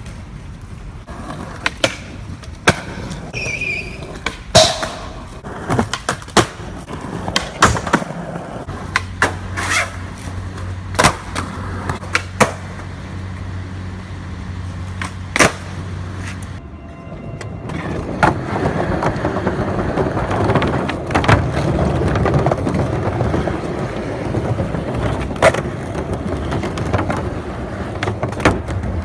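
Skateboards being ridden and flipped: sharp clacks of tails popping and boards landing, over the rumble of wheels rolling. In the second half the wheel rumble is heavier, as the board rolls across a wooden plank deck.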